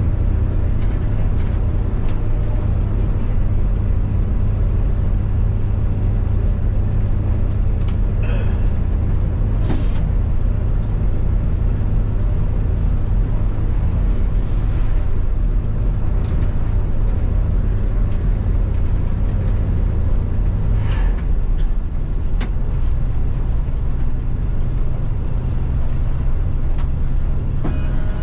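Tour bus engine running under way with a steady low drone. A few short hisses break in along the way, and about three-quarters through the engine note drops and changes.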